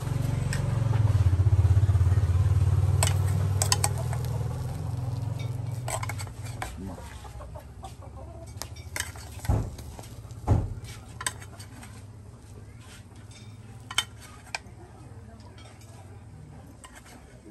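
A metal spoon scrapes and clinks against a small saucepan and a grill grate as sauce is spooned over mussels on a charcoal grill, with scattered sharp clinks and two dull knocks about halfway through. A low rumble is loudest in the first few seconds and fades out.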